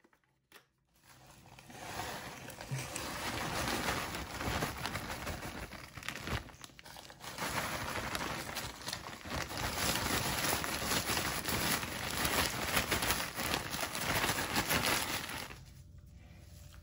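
Crushed Oreo cookie crumbs being poured and shaken out of clear plastic into a glass bowl, with the plastic crinkling and the crumbs crackling. The sound runs continuously after about a second, pauses briefly about six seconds in, and stops shortly before the end.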